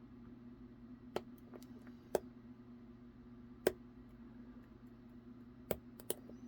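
Sharp, separate metallic clicks of a dimple flag pick working in a Scandinavian oval padlock's dimple keyway, five in all at an uneven pace. A steady low hum runs underneath.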